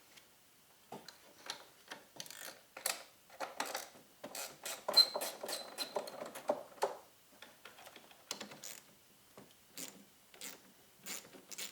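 Hand tools working on truck battery terminals: irregular metal clicks and clinks, with a denser run of clattering ratchet-like clicking in the middle, as the terminal nuts are loosened and the cables pulled off.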